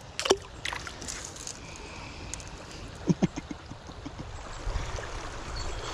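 Shallow creek water running and gurgling over gravel, with a sharp click about a third of a second in and a few faint small knocks and splashes around the middle.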